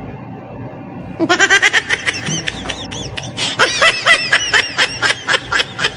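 Laughter in quick, even bursts of about five a second, starting about a second in after a short stretch of low background noise.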